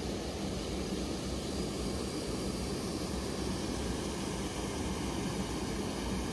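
Steady rush of a clear, fast-flowing mountain stream, with water running over a small weir.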